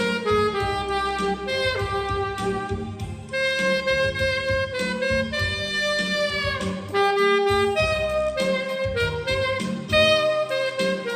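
Saxophone playing a slow melody in C minor over a low accompaniment, recorded dry without added effects; about two-thirds of the way through, one held note bends downward.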